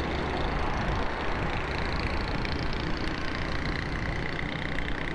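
Steady road noise from a moving motorcycle in city traffic: a constant rush of wind and engine noise, with a dump truck running close alongside near the start.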